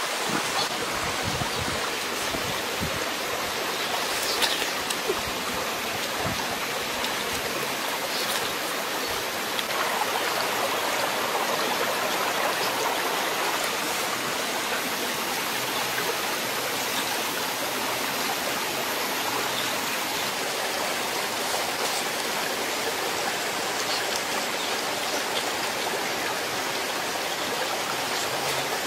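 Small stream running over rocks: a steady rush of water, with a few faint clicks.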